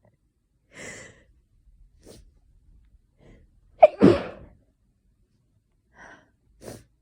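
A person's sneeze in a sneezing fit: a few short catching breaths, then one loud sneeze about four seconds in, followed by faint breaths. The sneezer puts the fit down to hay fever or a coming cold.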